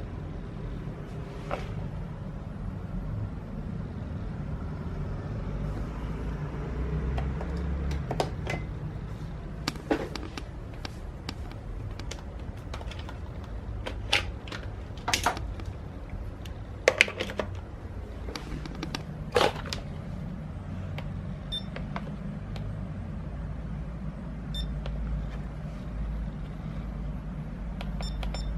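Scattered sharp plastic clicks and knocks as Miele S8 canister vacuum parts are handled and swapped, over a low steady background hum.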